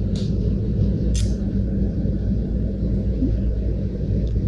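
Steady low engine and road rumble of a motor vehicle, heard while riding in it, with two short hisses in the first second or so.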